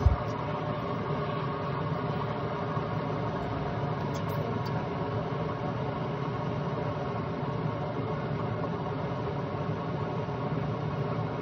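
Steady hum of a running kitchen appliance, an even buzzing drone that does not change, with one short knock right at the start.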